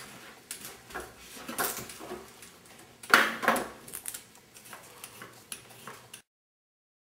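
Kitchen knives clicking and knocking on plastic and wooden cutting boards as vegetables are chopped, in irregular taps with a louder knock about three seconds in. The sound cuts off abruptly shortly before the end.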